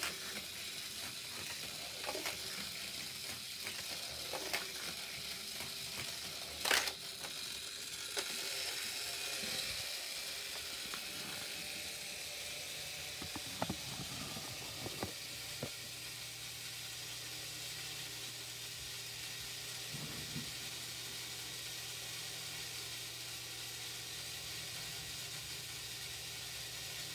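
Steady background hiss, broken by a few light clicks and one sharper knock about seven seconds in; a low steady hum sets in about halfway.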